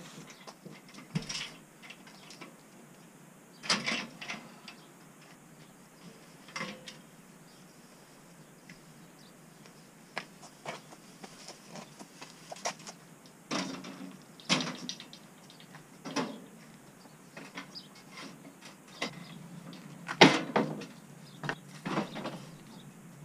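Aluminium scaffold tower frames and rails being handled and fitted together: irregular metal clanks and knocks, some ringing briefly, with a few much louder hits spread through.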